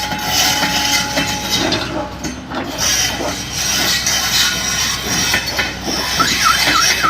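Excavator running under load while loading gravel into a tipper truck: a steady engine and hydraulic hiss and squeal, with scattered clanks and rattling. A rapidly repeating chirping tone starts about six seconds in.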